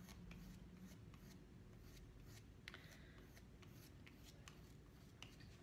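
Faint, scattered taps and scratches of a fork dabbing paint onto paper, over near-silent room tone.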